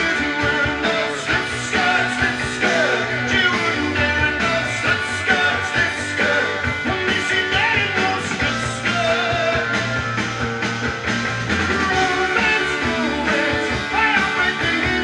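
Music playing from a vinyl record on a Dual 1245 belt-drive turntable, continuous and steady throughout.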